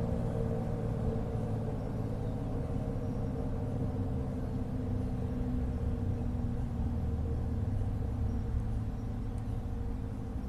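ACA Penetrator 10 dual-tone outdoor warning siren sounding at a low pitch: a steady chord of low tones over a rumble.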